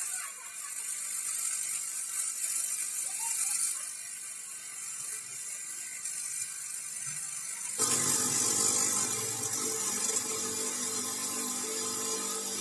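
Homemade coconut-husk shredding machine (cocopeat maker) running on test, a steady hiss at first; about eight seconds in the sound suddenly gets louder and fuller, with a steady mechanical hum.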